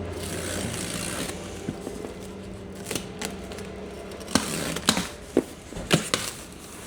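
Cardboard packaging of an exhaust kit being cut and pulled open by hand: rustling and scraping, then a few sharp snaps and cracks over the last couple of seconds.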